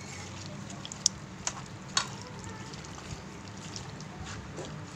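Hands mixing raw chicken pieces with spice paste, yogurt and oil in a pan: soft wet squelching with a few sharp clicks in the first two seconds, over a steady low hum.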